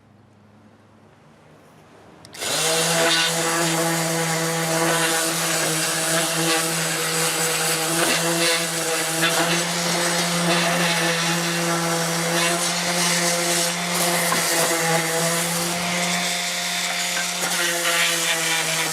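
DeWalt 20V MAX cordless orbital sander switched on about two seconds in, running steadily with a constant motor hum under the hiss of sandpaper rubbing on a surface.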